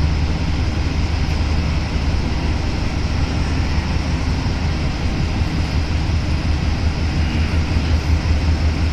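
Rubber-tyred NS-93 metro train running at speed between stations, heard from inside the car: a steady rumble over a strong low hum, swelling slightly near the end.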